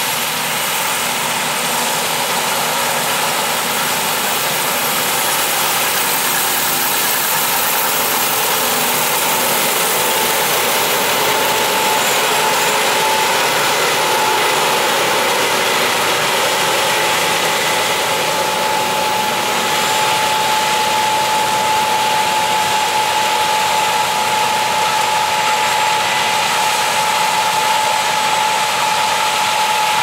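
Case IH 9240 combine running steadily while harvesting corn: its engine and threshing machinery make a loud, continuous mechanical noise. A steady high whine comes in about a third of the way through and holds.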